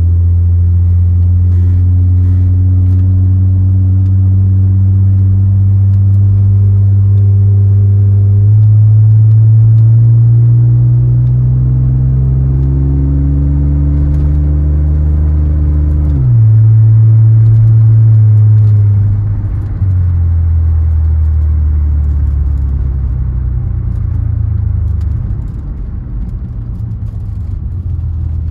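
The 1991 Mercedes-Benz 300TE's AMG 3.4-litre 24-valve straight-six, heard from inside the cabin while driving. The engine note climbs slowly, drops sharply at a gear change about 16 seconds in, steps down again a few seconds later and quietens near the end as the car eases off.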